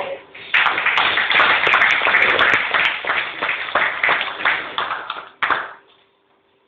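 A small audience clapping, a dense patter of many hands that thins out after about four seconds and stops with a last clap a second before the end.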